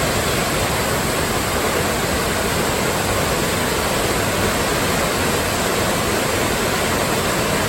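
Dry Falls waterfall: a steady, loud rush of falling water.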